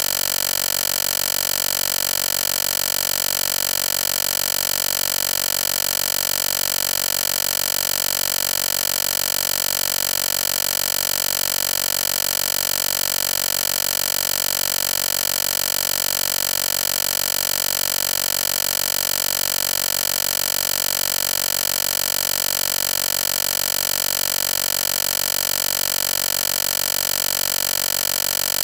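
A steady, unchanging electronic buzz: one constant tone rich in overtones that holds at the same pitch and loudness throughout.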